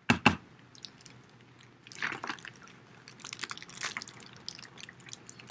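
A micropipette pressed onto a fresh tip in a plastic tip box: two sharp clicks right at the start. Softer clicks and handling rustles follow, as a culture tube and the pipette are handled.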